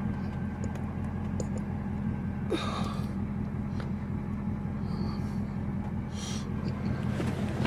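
Ford Mustang GT's 5.0 L Coyote V8 idling steadily at about 600 rpm, with a light tick that the owner takes for the normal "Coyote tick" or typewriter tick rather than a rocker arm or timing chain guide fault.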